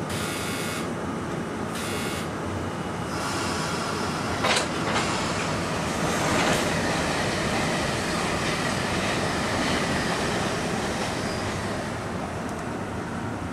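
Two passenger trains passing each other: MARC bilevel coaches rolling past close by on the near track while an Amtrak train hauled by an AEM-7 electric locomotive runs by on the far track. There is continuous rail and wheel noise, with a sharp clank about four and a half seconds in and a thin, steady high squeal from about six seconds to eleven.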